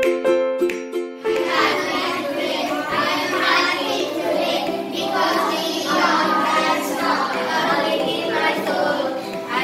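Plucked-string music cuts off about a second in, and a group of children starts singing together in unison.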